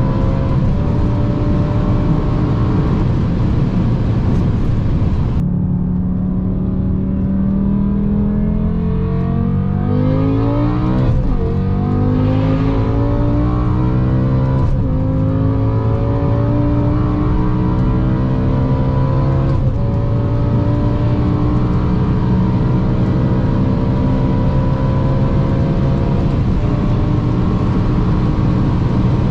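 BMW S85 5.0-litre V10 engine pulling hard under load at speed, its pitch dipping briefly near the middle and then climbing steadily again as it revs up.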